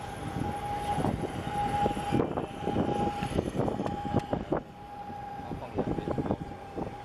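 Container ship passing close, a steady mechanical whine from its machinery running over an uneven, surging rumble.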